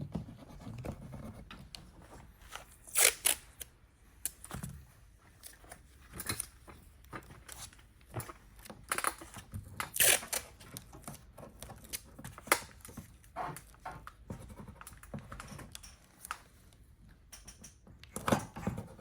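Adhesive tape being pulled and torn off in short strips and pressed down by hand, a handful of sharp rips spread among quieter rustling and handling noises.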